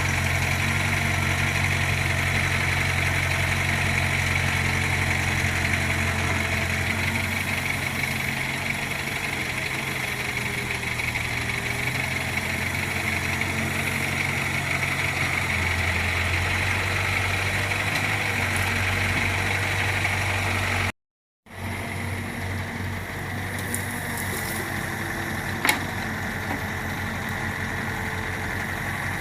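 Diesel engine of heavy site machinery idling steadily, broken by a brief cut to silence about three quarters of the way through. A single sharp click follows a few seconds later.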